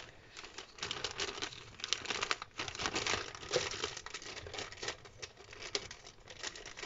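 Thin clear plastic bag crinkling and rustling as hands handle it and work it open, with irregular crackles throughout.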